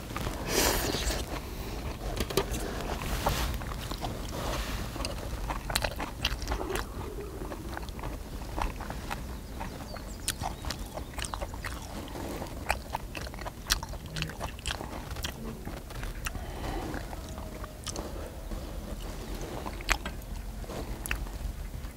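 A man eating spicy marinated pork: chewing and mouth sounds, with many sharp clicks from chopsticks picking food off the griddle and dish. A steady low rumble runs underneath.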